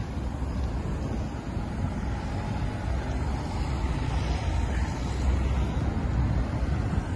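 Steady road traffic noise from cars passing on a city street, with wind buffeting the phone's microphone as a continuous low rumble.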